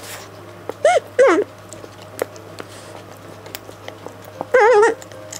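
Short, high, whine-like vocal sounds: two brief ones about a second in, then a longer quavering one near the end, with faint clicks in between.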